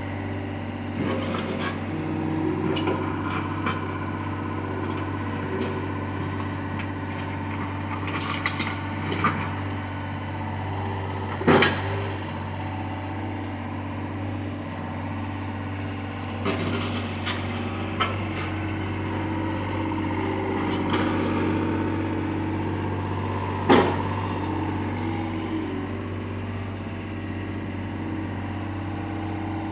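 John Deere excavator's engine running steadily under load, with occasional sharp knocks from the machine at work, two of them loud, about twelve seconds apart.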